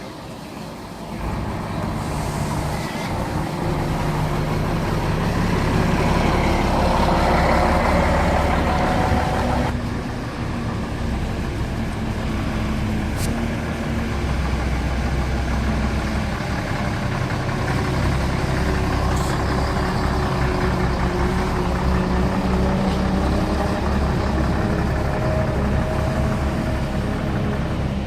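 Heavy vehicle engine running, growing louder over the first few seconds. The sound changes suddenly about ten seconds in, then carries on steadily with a faint rising whine.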